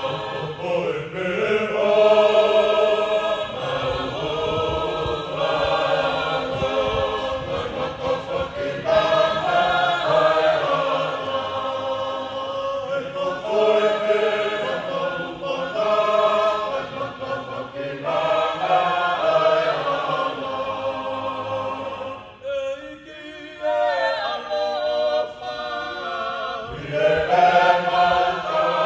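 Tongan choir of men's and women's voices singing in parts, in sustained phrases, with a brief break in the singing a little over three-quarters of the way through.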